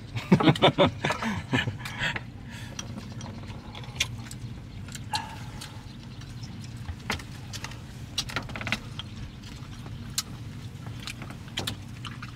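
Chopsticks clicking and scraping against a small ceramic bowl as a man eats snake stew from it, with a denser clatter in the first two seconds and scattered sharp clicks after. A steady low hum runs underneath.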